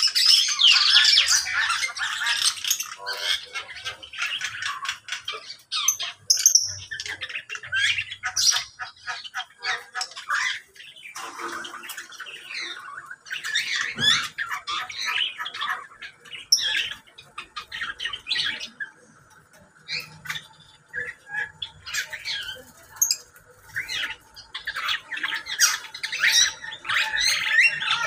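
A mixed aviary flock of lovebirds, Java sparrows and other small birds chattering, with shrill squawks and rapid overlapping chirps. The calling is busiest at the start and again near the end, and thins out in the middle.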